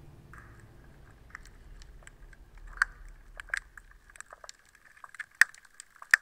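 Underwater sound recording: irregular sharp clicks and snaps over a faint steady hiss, growing louder and more frequent in the second half.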